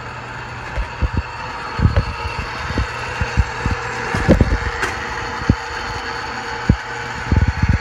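Hardinge HLV-H toolroom lathe running with its spindle turning: a steady mechanical hum with a faint whine, broken by irregular low thumps.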